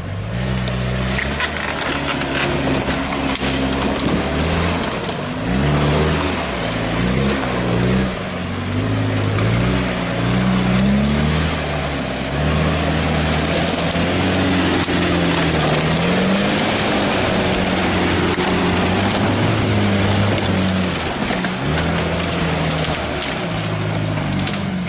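Off-road 4x4's engine revving up and down with the throttle as the vehicle churns through deep mud, pitch rising and falling every second or two.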